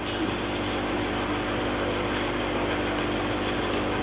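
Hot-air rework station blowing steadily, an even hiss over a low hum, as hot air is played on a buck-converter chip on an LED TV main board to desolder it.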